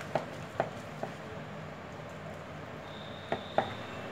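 Wire whisk stirring thick flour batter in a plastic bowl: soft mixing sounds with a few faint taps of the whisk against the bowl.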